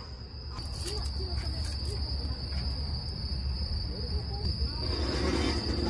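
Crickets chirping in a steady, unbroken high trill over a low steady rumble.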